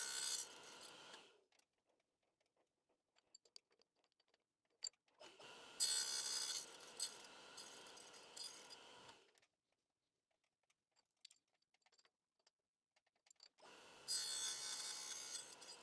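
Clarkson Mk1 tool and cutter grinder's wheel grinding a steel gearbox selector dog, in three short passes: one fading out in the first second, another from about five to nine seconds in, and a third starting near the end, with near silence between.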